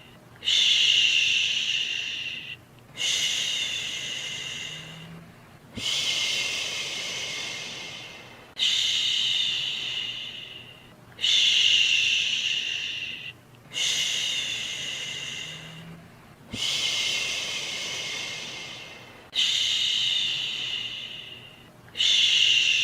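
A soothing "shhh" shushing sound, as used to settle a baby to sleep, repeated about nine times at a steady pace of one every two and a half seconds or so. Each shush starts sharply and fades away before a short pause.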